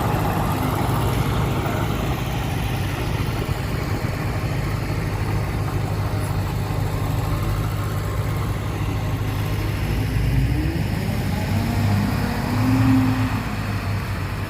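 Heavy machinery engine, a bulldozer or dump truck working earth, running steadily with a low hum; near the end its pitch rises and falls and it briefly gets louder.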